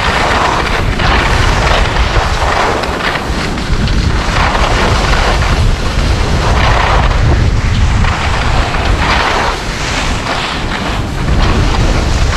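Wind buffeting the camera microphone during a ski descent, under the scraping hiss of skis carving on packed snow that swells with each turn every couple of seconds.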